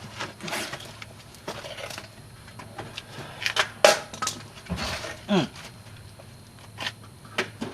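Hand tools clicking and knocking against the steel parts of a car's front suspension, in scattered sharp strikes, while working at a cotter pin.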